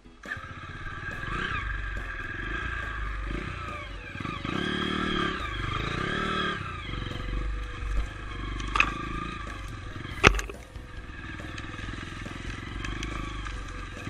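Dirt bike engine running at low speed, revving up and dropping back twice about four to six seconds in. Two sharp knocks, the louder one about ten seconds in.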